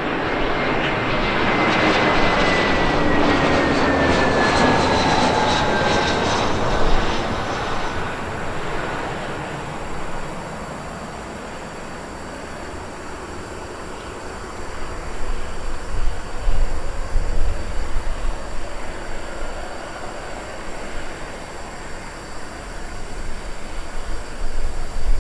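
Airbus A321 jet airliner flying past: a loud engine roar with a whine that slides down in pitch as it passes, then fades to a distant rumble after about ten seconds. Gusty low rumbling follows in the second half.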